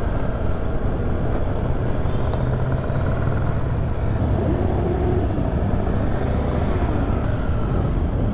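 Many motorcycle engines running together at low speed in a slow-moving procession, a dense steady rumble; about halfway through, one engine's pitch rises and falls as it passes.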